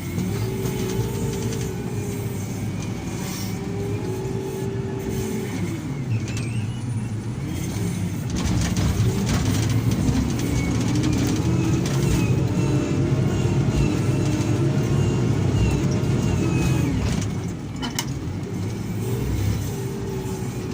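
A heavy earthmoving machine's diesel engine working under load. Its pitch rises and holds for a few seconds, drops, then rises again and runs louder for most of the second half before falling back near the end.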